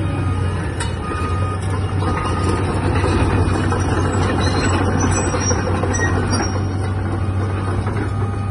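Cat 320CL hydraulic excavator's six-cylinder diesel engine running steadily at working speed, with hydraulic whine and metallic noise from the steel tracks as the machine swings and moves. The sound grows louder from about three seconds in and eases near the end.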